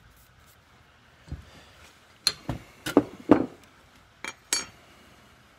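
A run of sharp metallic clinks and knocks, about eight over three seconds and loudest in the middle, from small hand tools and a steel ignition points plate being handled.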